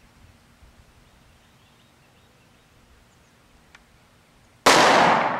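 A single shot from a Springfield Armory XDs 3.3 subcompact .45 ACP pistol firing a 230-grain +P Federal HST round, sudden and loud about four and a half seconds in, its report echoing and dying away slowly. Before it, only a faint outdoor background.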